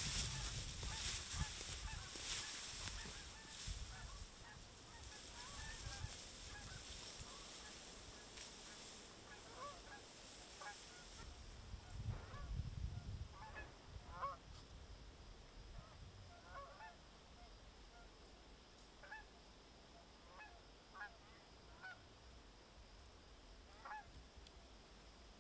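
Flock of Canada geese honking: faint, scattered short calls throughout, busiest around the middle. A steady hiss for the first ten seconds or so.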